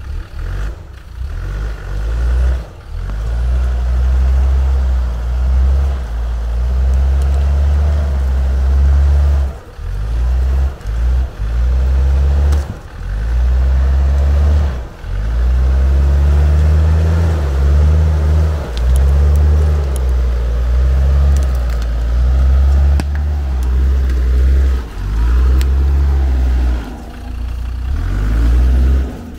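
Off-road 4x4's engine revving up and easing off again and again while crawling over rough ground, with a heavy low rumble that keeps breaking off and coming back.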